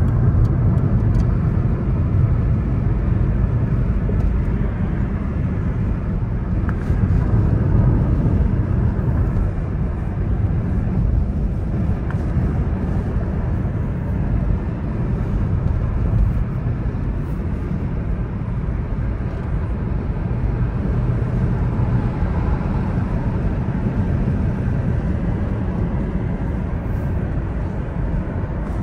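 A car driving at steady speed: a continuous low rumble of engine and tyre noise.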